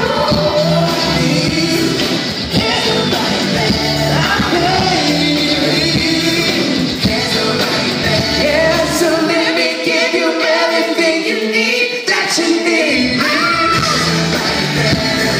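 Pop song with sung vocals over a backing track, played through a PA for a sound check. The bass drops out about ten seconds in and comes back about three seconds later.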